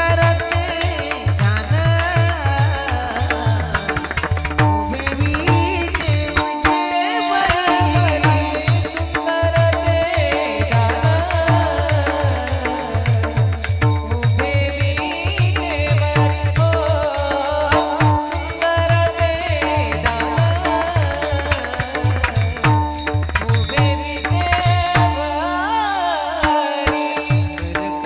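Marathi kirtan music: a devotional panchpadi sung over an even drum beat and steady held accompanying tones, with a high metallic jingle of hand cymbals running through it.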